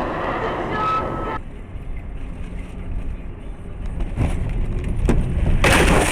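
Vehicle engine and road rumble picked up by a dashcam, with a few knocks and then a loud noisy crash of impact near the end: a road collision.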